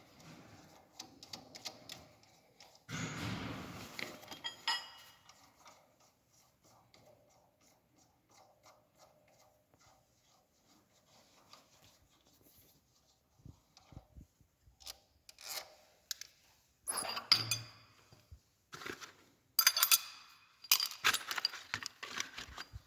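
Metal hand tools and the steel seal-installer mandrel clinking, scraping and rattling as the mandrel is unscrewed from the crankshaft nose. The sounds come in irregular bunches: a rubbing stretch early, a long quiet spell, then sharp clicks and clatter that are loudest near the end.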